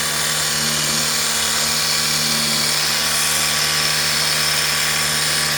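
Small electric water-jet pump running steadily with a steady hum and a hiss of spraying water, washing dust out of a split air conditioner's blower.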